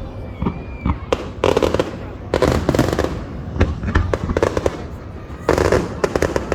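Fireworks going off: clusters of sharp bangs and crackles about a second apart, with a loud crackling volley about 5.5 s in.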